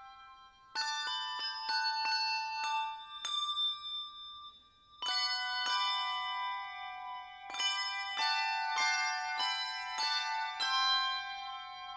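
Instrumental music of struck, ringing bell-like notes playing a slow melody in phrases, with a pause about three seconds in while one note rings on.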